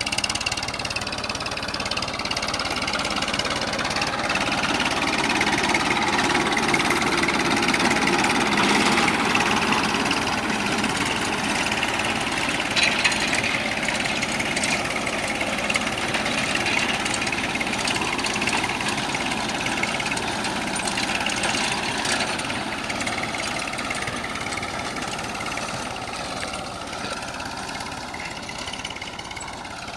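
Massey Ferguson 1035 tractor's three-cylinder diesel engine running under load as it pulls a cultivator through dry soil. It grows louder as the tractor passes close by, about eight to ten seconds in, then fades as it pulls away.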